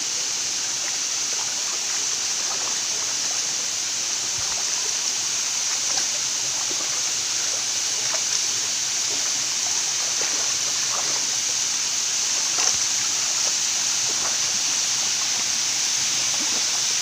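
Waterfall rushing: a steady hiss of falling water, with small splashes here and there.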